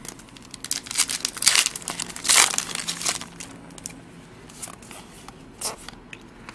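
Trading-card pack wrapper crinkling and tearing as it is opened, in a dense run of rustling during the first half, loudest about two and a half seconds in, then a few scattered soft clicks as the cards are handled.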